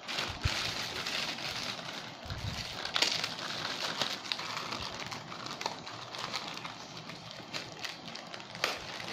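Thin plastic bag crinkling and rustling as hands work the rubber band at its neck and squeeze out the sauce inside, with sharp crackles now and then, the loudest about three seconds in.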